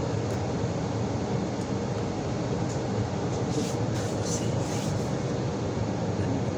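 A steady low rumbling noise, with a few faint scrapes about halfway through as a thin metal pick works gravel out of a car tyre's tread.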